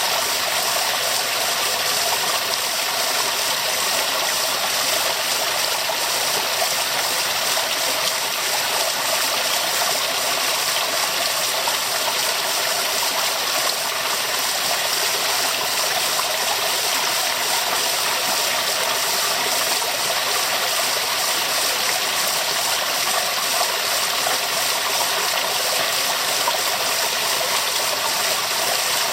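Waterfall: water falling and rushing steadily, a constant hiss with most of its weight in the middle and upper range.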